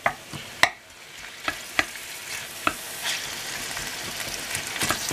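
Pieces of turkey in teriyaki marinade sizzling in a frying pan while a wooden spatula knocks and scrapes against the pan, stirring them. The sizzle grows louder and thicker from about halfway through as the pan heats the meat.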